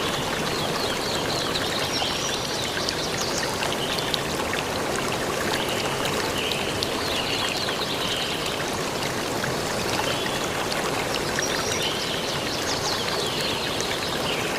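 Steady rush of water pouring over the dam, with high chirping calls, likely a bird, recurring every few seconds above it.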